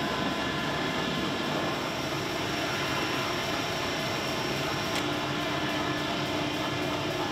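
Steady drone of blacksmith-shop machinery around an air power hammer, with no hammer blows; a faint click about five seconds in.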